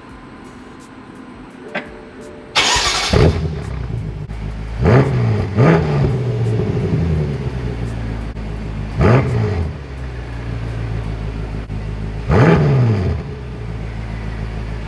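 BMW F10 M5 Competition's twin-turbo V8 idling, blipped several times to around 2,500 rpm through its Competition exhaust mufflers, each rev a quick rise and fall in pitch before it settles back to idle.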